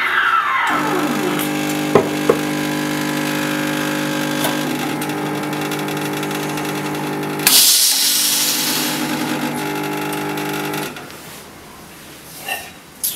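Espresso machine running with a steady hum as milk steaming ends: a squeal falls in pitch in the first second. About seven and a half seconds in comes a burst of steam hiss from the steam wand. The hum stops just before eleven seconds, leaving a few light knocks.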